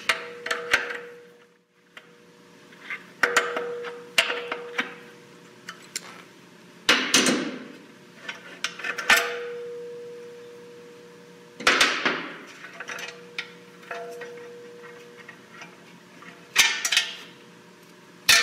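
Steel transmission parts and pliers clinking and knocking against the aluminium case of a Ford 10R80 ten-speed transmission as the manual shaft lever and parking pawl linkage are worked loose and lifted out by hand. About a dozen sharp, irregular clinks, some followed by a short metallic ring.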